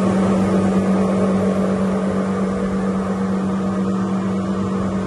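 Electric fill pump running with a steady, loud hum, pumping water from the storage tanks through a cam lock hose into a boom sprayer's tank.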